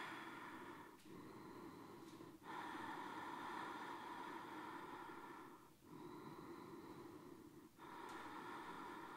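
A woman's slow, deep Ujjayi yoga breathing, a faint breath sound made through a slightly narrowed throat. It comes in long breaths of a few seconds each, with short pauses between them.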